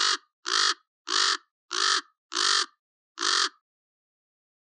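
A crow-family bird (corbeau) cawing: six short caws, evenly spaced about two thirds of a second apart, stopping about three and a half seconds in.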